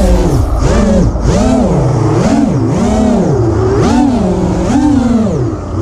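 A motor revving up and down over and over, its pitch rising and falling about once a second.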